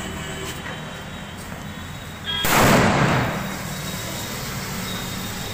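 A firecracker going off once with a loud bang about two and a half seconds in, the sound dying away over about a second.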